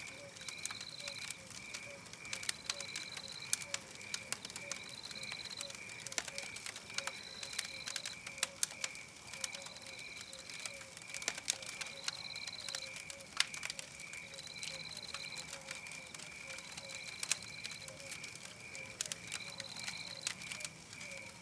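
Campfire crackling in irregular sharp snaps, over a steady background of night chirping: a fast pulsing trill with a higher chirp repeating about once a second.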